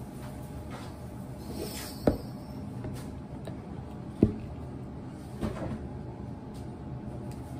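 Handling of a plastic blender cup and a ceramic mug on a countertop: a short pour of thick smoothie into the mug, then two sharp knocks about two seconds apart as the cup and mug are set down.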